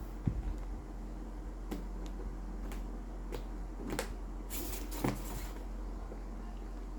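A cardboard smartphone box being opened by hand: a few light clicks and taps, then a short rustle of packaging about halfway through, over a low steady hum.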